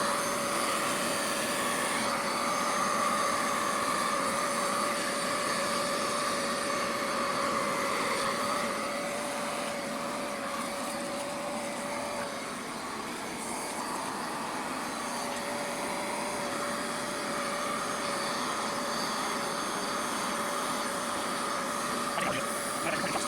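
A motor running steadily with a high, even whine over a rushing hiss; the lower tone of the whine drops out for a couple of seconds about halfway through.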